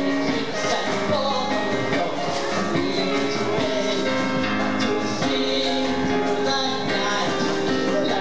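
Music: instruments playing held notes over light percussion.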